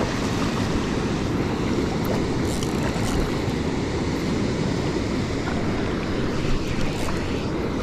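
Wind buffeting the microphone over the steady rush of flowing river water, with a few faint ticks.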